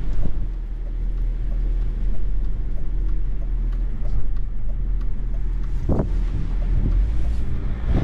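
Car engine idling steadily, heard from inside the cabin as a low hum, with storm wind noise over it. A short knock about six seconds in.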